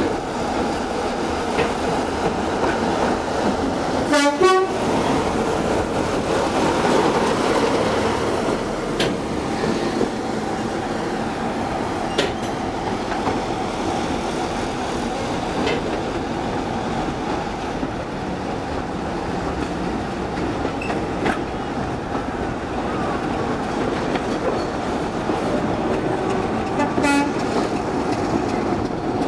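Two diesel-electric locomotives, a Class 47 and a Class 45 'Peak', working under power side by side, their engine noise mixed with the steady rumble of the carriage wheels on the rails, heard from a carriage window. Two brief sharp sounds stand out, about four seconds in and near the end.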